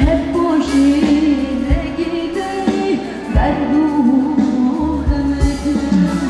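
Live band music with a woman singing a wavering melody into a microphone, over a bass line and drum beats.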